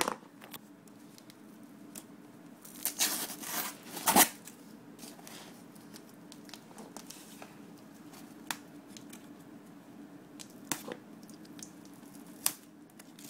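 Cardboard and packing tape being torn and ripped by hand from a heavily taped shipping box, in scattered short bursts, the loudest cluster about three to four seconds in, with occasional crinkles and scrapes between.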